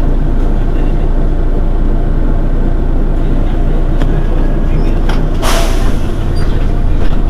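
Mercedes-Benz Citaro city bus engine idling at a standstill, a steady low running sound. A short hiss of released compressed air comes a little over five seconds in, and another brief one at the very end.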